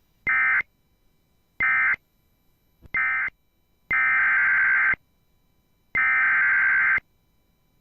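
Emergency Alert System SAME data bursts: three short, buzzy digital chirps of the end-of-message code, closing the previous alert. Then two of the three longer, one-second header bursts that open the next alert.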